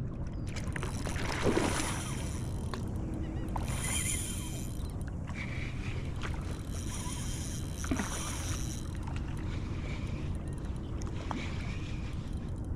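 Wind and water noise on a kayak out on open bay water, with three brief swishing sounds: one at about a second and a half, one at about four seconds, and a longer one at around eight seconds.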